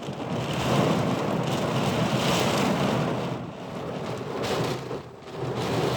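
Heavy rain pouring in a gusting wind storm, a steady loud wash of noise that eases briefly about five seconds in.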